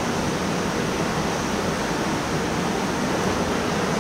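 Steady, even background din of a school gymnasium, with no single sound standing out.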